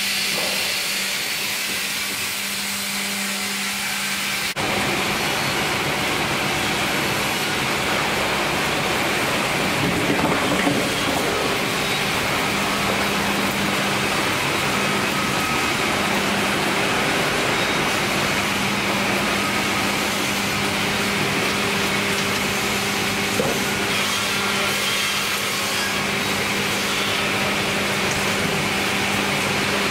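Sawmill machinery running steadily: motors, conveyors and saws make a continuous din over a constant hum. The sound changes abruptly about four and a half seconds in, and there is a brief louder stretch around ten seconds in.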